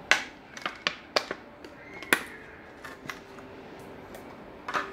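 Clear plastic packaging bag crinkling and crackling as a coiled cable is pulled out of it by hand: a series of sharp crackles, loudest just after the start and about two seconds in, with another near the end.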